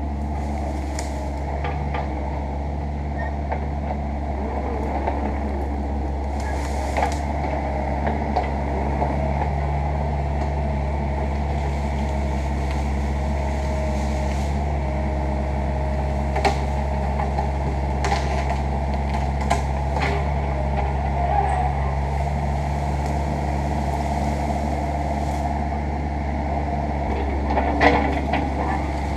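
Mini excavator's diesel engine running steadily under work, with occasional sharp cracks and knocks.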